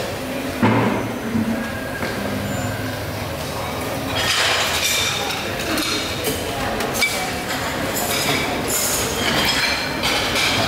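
Busy noodle-soup shop din: dishes and utensils clinking in bursts, about four seconds in and again near the end, over a steady rumble.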